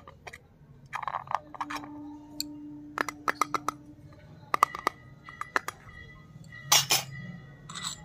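Light metallic clicks and clinks of a miniature stainless-steel container and its lid being handled, with a louder double knock about seven seconds in as it is set down.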